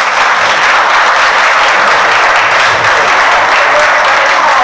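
Audience applauding, a dense and steady clapping from many hands.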